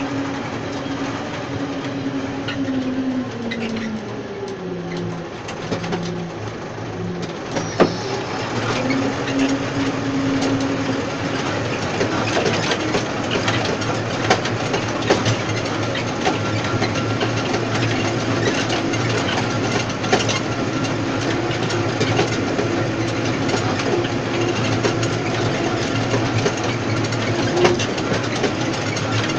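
Tractor engine running while it tows a tine stubble cultivator; the engine speed falls for a few seconds and then picks up again, with a sharp clack about eight seconds in. From about twelve seconds on, the cultivator's tines working through the soil add a steady rattling clatter over the engine.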